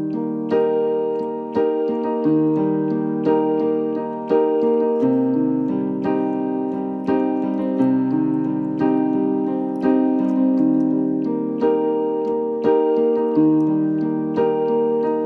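Outro music: a piano playing a steady, repeating pattern of chords, about one to two struck notes a second.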